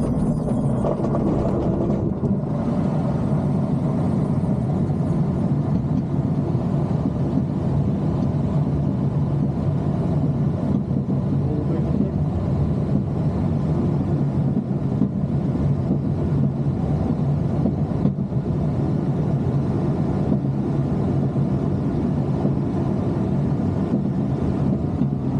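Steady rush of air and rumble inside an ASK 21 glider's cockpit as it rolls off the grass and climbs away on launch.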